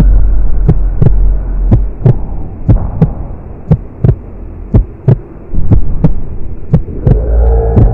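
Heartbeat-style sound effect: paired thumps about once a second over a low steady drone.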